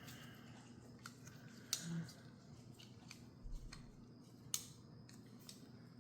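Faint, sharp metal clicks and taps, about five of them spread a second or so apart, from the small parts of a McNees Mac 2 folding knife being handled and fitted back together.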